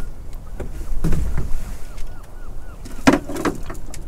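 Knocks and bumps in a small open boat as a man works over the bow, one about a second in and a cluster about three seconds in, over a low rumble of wind and water. A faint squeak repeats about four times a second for a second or so.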